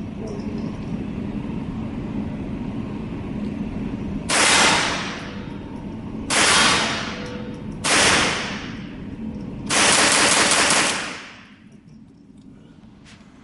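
Gunshots at a shooting range: three single shots about two seconds apart, each ringing out briefly, then a longer run of shots fired in quick succession that blend together for about a second.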